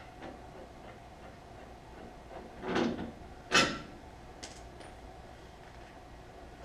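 Two clunks from handling tools and parts during a front suspension teardown, the second shorter, sharper and louder, about three and a half seconds in, with a few faint clicks after, over a faint steady hum.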